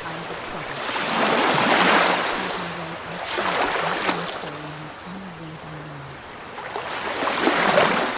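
Ocean waves washing in and drawing back, with three swells of surf, the loudest about two seconds in and near the end.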